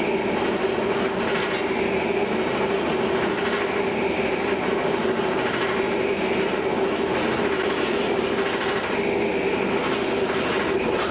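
An electric power tool running steadily at constant speed on steel: a constant hum with a hiss over it, with no strokes or pauses.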